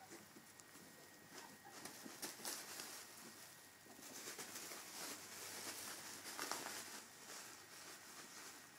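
Plastic bubble wrap crinkling and rustling faintly as a ferret burrows and scrabbles through it, busier for a few seconds in the middle.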